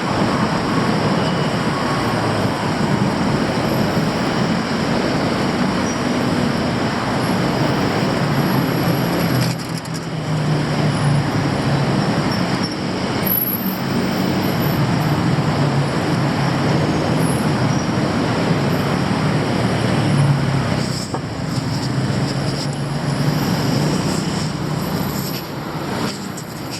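Steady city street traffic: a continuous wash of road noise with the low hum of vehicle engines running, easing a little now and then.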